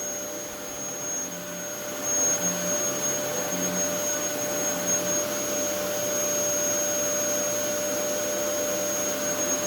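A steady motor running, with a constant high whine over an even rushing noise; it gets a little louder about two seconds in.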